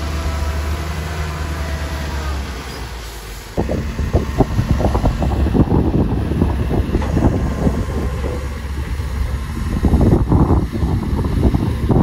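Heavy diesel engine of construction machinery running steadily. About three and a half seconds in, the sound switches abruptly to a louder, rougher rumble with crackling and buffeting.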